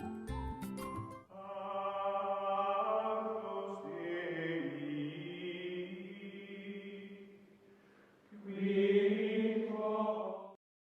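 Outro music: a few sharp percussive strikes end in the first second, then sustained chant-like vocal music in two long held phrases. The second phrase cuts off suddenly near the end.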